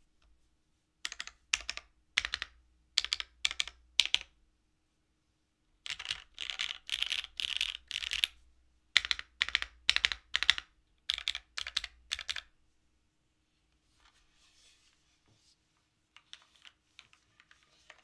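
Typing on a Matrix Lab 8XV 2.0 Add top-mount tenkeyless mechanical keyboard with an aluminium plate, lubed Cherry MX Black Hyperglide linear switches and GMK keycaps. A few short bursts of keystrokes come first, then a longer run of fast, continuous typing. Only faint handling noise follows near the end.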